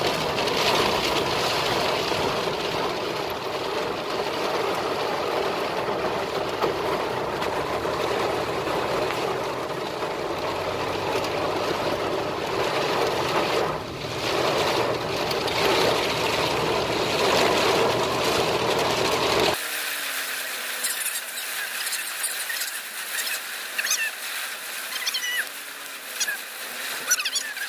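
Heavy rain drumming on a car's roof and windshield, a dense steady hiss. About 20 seconds in it changes abruptly to lighter, scattered drops ticking on the glass, with faint wavering tones underneath.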